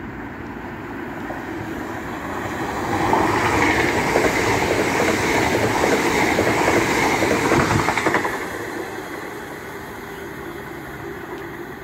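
Hull Trains Class 802 bi-mode train, running on diesel, passing at speed. The noise of wheels and engines builds about three seconds in, stays loud for about five seconds as the coaches go by, then falls away sharply after about eight seconds as the train recedes.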